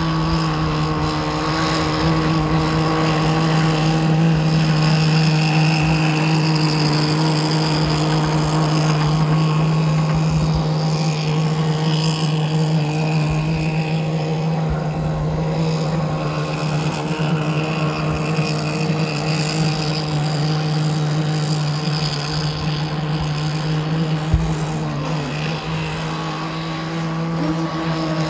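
CMB 26cc two-stroke marine engine of a Pacer 70 RC racing boat running at speed with its CMB header and exhaust, a loud, steady high-pitched drone that holds one note. The engine is on a very rich mixture for its first runs, kept well short of maximum revs.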